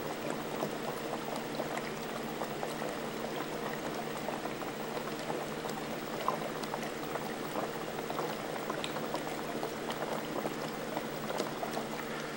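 Water bubbling in an aquarium tank: a dense, continuous stream of small bubble pops over a steady low hum.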